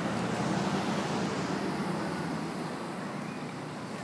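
A car passing on the street, its tyre and engine noise slowly fading away.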